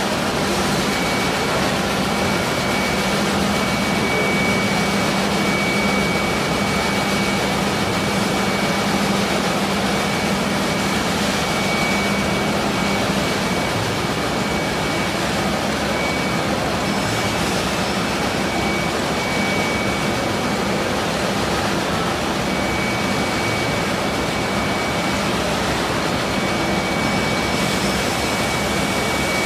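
Five-axis CNC router spindle running and milling a curved wooden workpiece: a steady cutting noise with a thin high whine. A low hum underneath fades out about halfway through.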